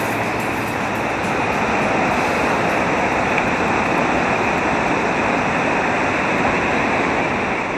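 Whitewater river rapids rushing steadily, a dense, even noise of churning water.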